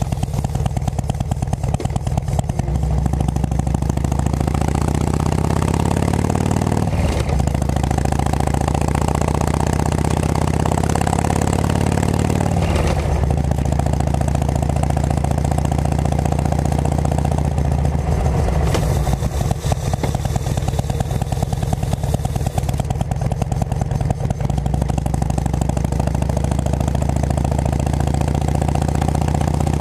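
Harley-Davidson Road King Classic V-twin with aftermarket Cycle Shack pipes running under way, its exhaust note steady. The revs climb and drop a few times as it is shifted, about a quarter, half and two-thirds of the way through, with wind rushing over the helmet-mounted microphone.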